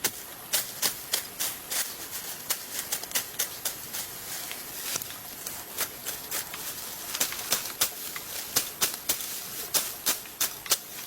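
A run of sharp taps or knocks, about three a second, fainter for a few seconds in the middle.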